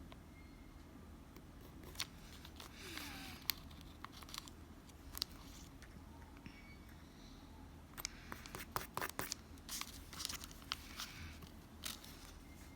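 Quiet desk work on a paper planner: scattered light taps and clicks with short rustles of paper and stickers being handled, peeled and smoothed down, busiest about eight seconds in.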